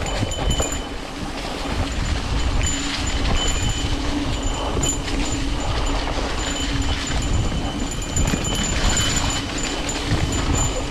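Mountain bike rolling down a dirt trail covered in dry leaves: a steady rumble of the tyres over leaves, dirt and roots, with a steady low hum under it.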